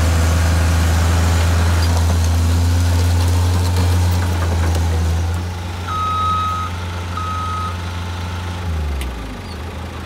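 Engines of a John Deere 323D compact track loader and a stuck Lull Highlander forklift running hard at high revs during the pull. Two short electronic beeps sound about six and seven seconds in, and the engine revs then drop away near the end.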